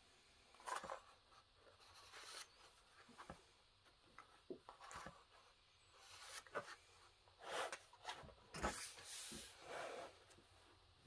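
Pages of a thick coloring book being turned one after another: faint paper swishes and light taps, spaced a second or so apart, with a busier run of page turns near the end.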